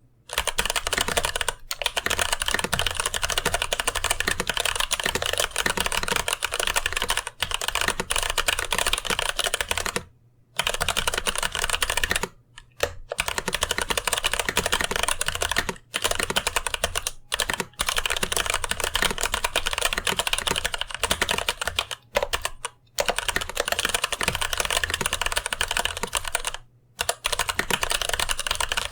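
Mechanical keyboard with TTC Gold Pink switches in a brass plate and GMK and GoK keycaps, being typed on fast and continuously, with a few brief pauses between bursts of typing.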